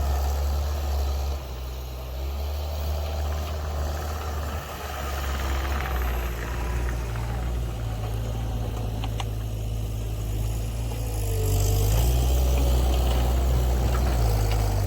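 Caterpillar 289C compact track loader's diesel engine running steadily while working, getting louder about twelve seconds in.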